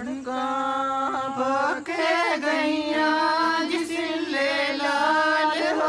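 Slow, drawn-out solo singing on the soundtrack, with long held, slightly wavering notes, as the opening of a Punjabi bride's farewell song begins.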